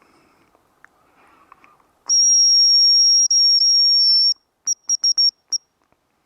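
Hazel grouse decoy whistle blown close by: a long, thin, high whistle for about two seconds, then a quick run of five short notes, imitating a male hazel grouse's song.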